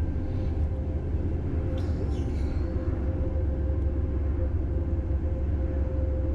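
Pickup truck cruising at highway speed, heard from inside the cab: a steady low rumble of road and engine with a constant hum. A brief hiss comes about two seconds in.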